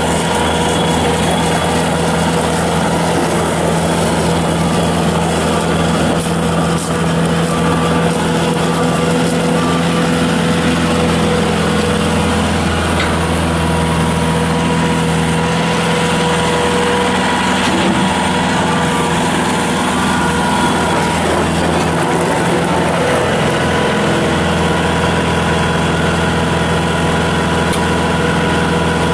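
Bobcat S300 skid steer loader's Kubota diesel engine running at a steady speed.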